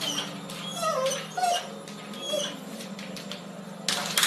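A pet animal giving several short whining cries that bend up and down in pitch, over a steady low hum.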